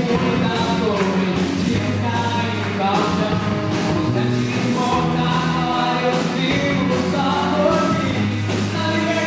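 Rock song played by a band, with a sung vocal line over steady bass notes and a regular drum beat.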